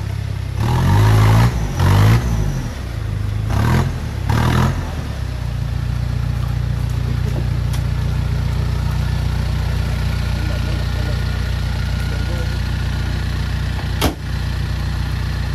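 Off-road 4x4's engine revving in a few short bursts, then settling into a steady idle. A single sharp click comes near the end.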